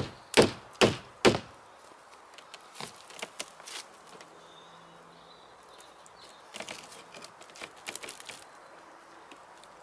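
Three sharp hammer blows on a timber fence panel, about two a second, followed by scattered faint knocks and scrapes of wood as the panel's bottom edge is worked by hand.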